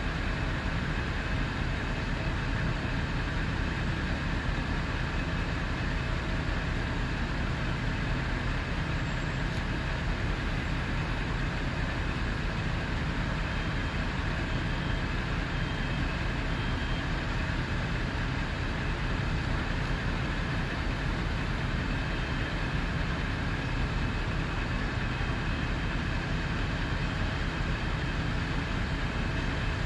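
Fire apparatus engine running steadily: a constant low drone with an even hiss over it.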